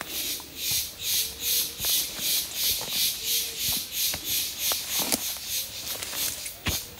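An insect singing in a steady run of high, hissing pulses, about three a second.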